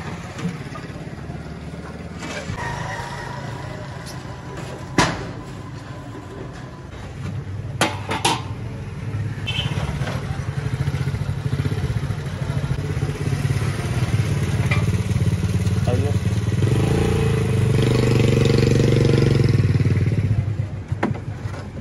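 Street noise with a motorcycle engine running close by, getting louder toward the end and then falling away just before the close. A few sharp metal clanks come from aluminium pot lids being handled, about five and eight seconds in.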